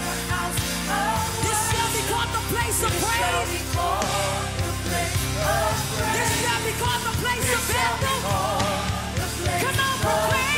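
Live church worship music: a band plays held bass notes and a steady beat while voices sing a worship song over it.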